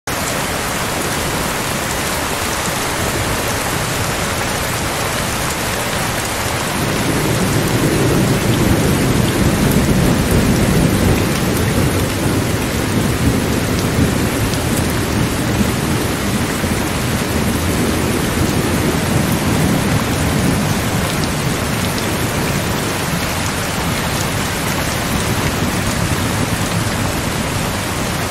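Steady rain falling, with a long low rumble of thunder that builds about seven seconds in and slowly dies away over the next ten seconds or so.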